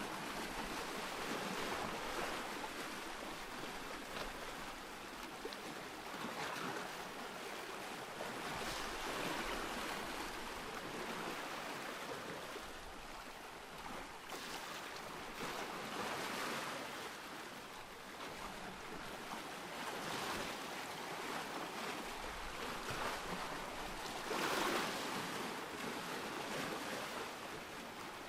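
Ocean surf: waves washing ashore one after another as a continuous hiss that swells every few seconds, with the biggest surge near the end.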